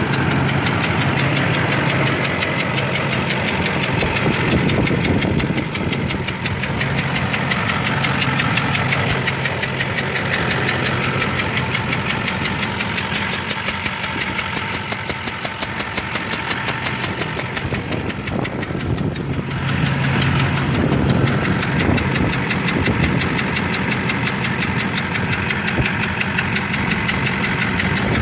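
2005 Duramax LLY 6.6-litre V8 turbo-diesel idling, with a fast, even ticking knock throughout. The owner takes the knock for a bad injector, and he likens an exhaust-like sound in it to a leaking exhaust manifold.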